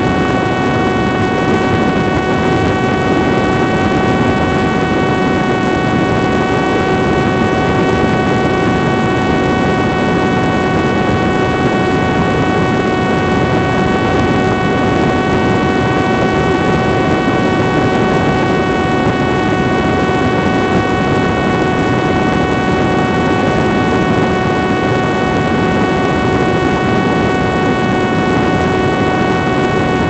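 Parrot Disco fixed-wing drone's electric motor and rear propeller whining steadily at high power in fast level flight, with a constant pitch, over a heavy rush of wind noise.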